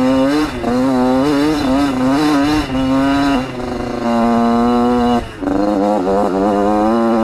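Yamaha YZ80 dirt bike's two-stroke single-cylinder engine revving hard under riding load, its pitch rising and falling as the throttle is worked. The revs ease off partway through, drop with a quick throttle chop about five seconds in, then climb again.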